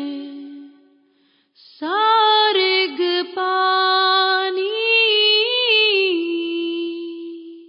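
A single voice singing a devotional shabad, with no instruments. After a brief pause about a second in, it draws out one long held phrase with a few turns in pitch, then drops to a lower note and fades away near the end.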